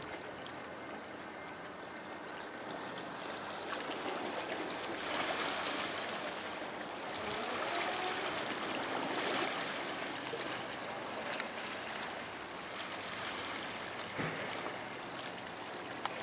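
Water washing and lapping at the harbour's edge: a steady rushing that swells twice in the middle.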